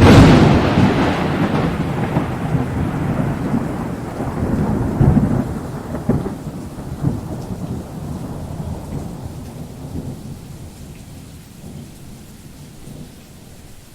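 A thunderclap that strikes suddenly, then rumbles on in rolling swells and slowly fades away.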